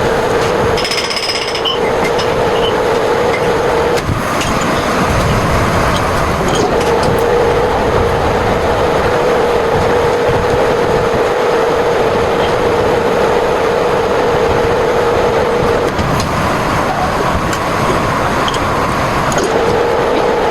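Loud, steady noise of running machinery with a constant hum that drops out briefly a few times, about four seconds in, near six seconds, at sixteen seconds and near the end, with a few faint clicks.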